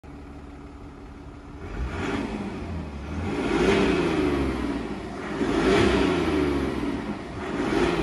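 Mercedes-Benz GLS 350d's 2.9-litre six-cylinder diesel, heard from inside the cabin, idling and then revved up and let fall back several times while the car stands still in Sport mode.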